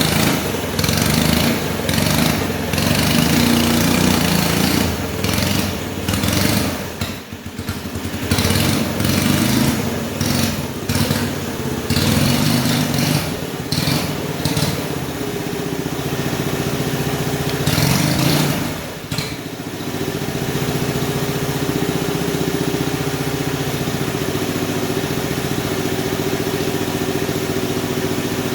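Small combustion engine of a hand-built scale RC Cat D11 bulldozer model running, its speed rising and falling with two short dips. About two-thirds of the way through it settles into a steady idle.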